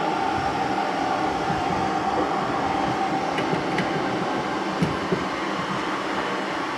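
Steady rushing machine noise with a faint high hum that fades after about three seconds, and a few light metallic clicks as pliers work the self-adjuster cable and hardware of a rear drum brake.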